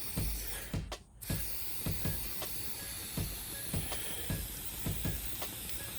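WD-40 aerosol spraying through its extension straw, a steady hiss with a short break about a second in, as it flushes out a two-stroke engine's crankcase half.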